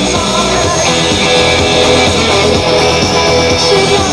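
Loud, steady music from an FM radio station playing through an ION Tailgater Express portable speaker.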